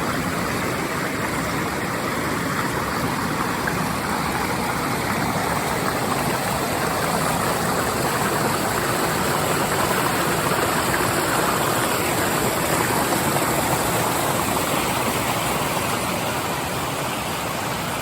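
Waterfall and stream water rushing steadily, running full with spring rainwater in a channel that is dry in summer.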